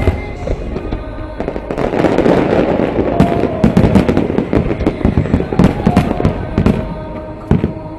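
Aerial fireworks display: repeated sharp bangs of shells bursting, with a dense stretch of crackling about a second and a half in. Music plays underneath.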